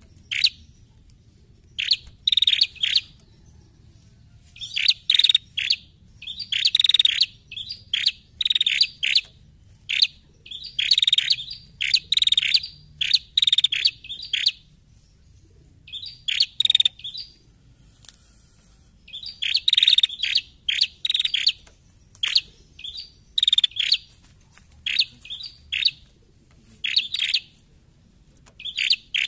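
Caged female prenjak (a rufous-crowned tailorbird) calling: quick clusters of sharp, high chattering notes, several in each burst, repeated again and again with short pauses and one longer lull about halfway.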